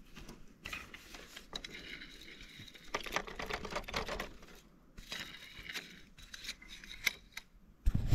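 Clicking and rattling from a fishing rod's drum reel as line is unwound from it by hand, in irregular runs of quick ticks. There is a sharp handling knock near the end.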